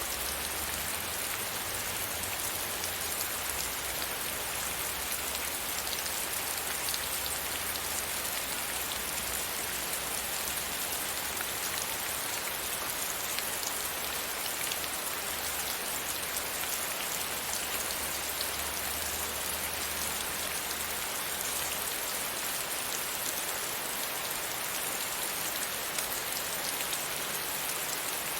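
Steady rain falling against a window pane: an even hiss with many small drop ticks, unchanging throughout.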